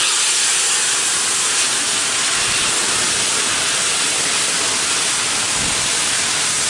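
Steam locomotive 60163 Tornado, a Peppercorn A1 Pacific, venting steam in a loud, steady hiss.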